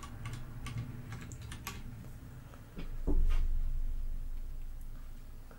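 Clicks of typing on a computer keyboard, then a dull low thump about three seconds in, the loudest sound, with a low rumble that fades away over the next two seconds.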